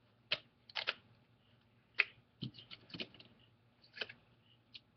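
Small sharp clicks and taps of a hand tool prying at clips and connectors on a tablet's main board. About eight clicks come in scattered bursts, some in quick pairs.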